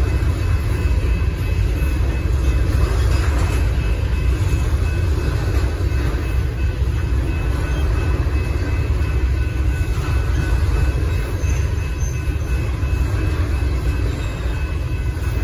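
Covered hopper cars of a Union Pacific grain train rolling past over a grade crossing: a continuous low rumble of wheels on rail, with faint steady high-pitched tones above it.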